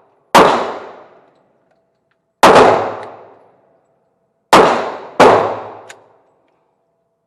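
Four gunshots at a shooting range: one shortly after the start, one about two seconds later, then two more in quick succession about two seconds after that. Each shot rings on and fades over roughly a second.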